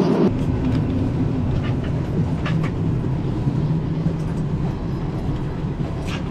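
Steady low hum inside a Boeing 737-800 airliner cabin, with a few faint clicks.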